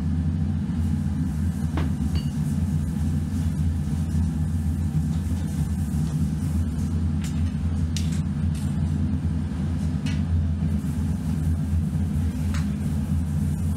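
A steady low machine hum with rumble, under a few faint clicks and scrapes of hands packing moulding sand into a metal flask.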